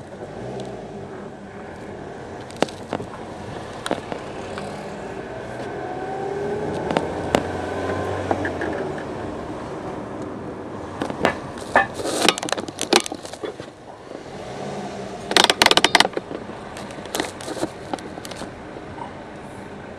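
Car engine and road noise heard from inside a moving car, the engine note rising as it speeds up a few seconds in. Clusters of sharp rattling clicks come about halfway through and again around three-quarters of the way.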